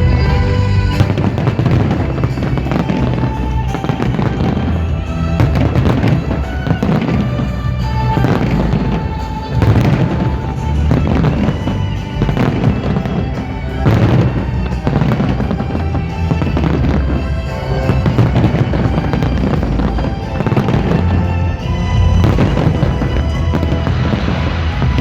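Fireworks display with many bangs and crackles going off in quick succession, over loud music playing at the same time.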